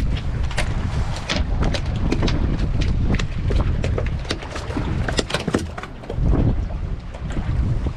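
A freshly landed sheepshead flopping and slapping on a fiberglass boat deck: irregular sharp slaps and knocks, several a second, over steady wind buffeting the microphone.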